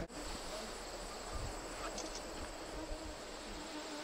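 Insects chirring steadily in a grassy meadow, a constant high, thin trill over an even hiss.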